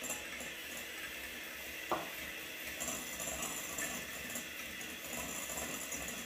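Egg whites being beaten into meringue in a bowl: a steady whisking noise, with one sharp knock about two seconds in.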